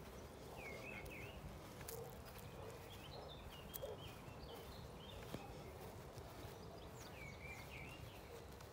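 Birds singing from the trees in short warbling phrases, a few times over, faint against a low steady rumble.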